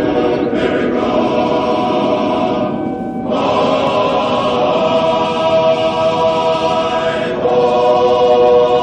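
Choral music: voices hold long sustained chords, changing chord after a brief dip about three seconds in and again near the end, where it grows louder.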